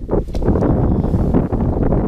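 Wind buffeting the camera's microphone: a loud, uneven low rumble with irregular gusty surges.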